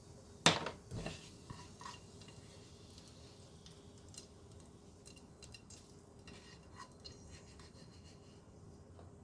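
Cooking utensils on a saucepan and bowl: a sharp metal clank about half a second in, a second knock about a second in, then light scraping and scattered clinks, as fried garlic and shallot are scooped out of the pan.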